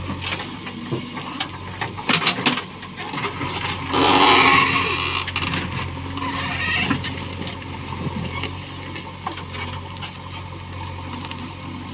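Heavy diesel machinery running steadily, with a few sharp clanks about two seconds in and a loud rushing, scraping burst about four seconds in.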